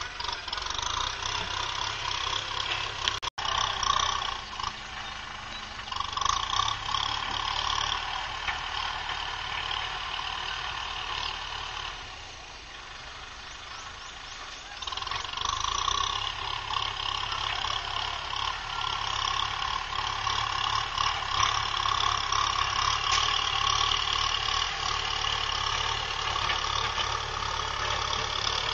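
A farm tractor's engine running steadily as it pushes soil with its front dozer blade. It eases off for a few seconds near the middle, then runs louder again.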